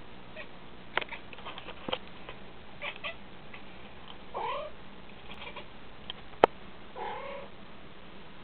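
A house cat making odd noises at a fly: quick clicking chatter and two brief chirping calls that bend in pitch, the excited sounds a cat makes at prey it is watching. There is one sharp click a little past the middle.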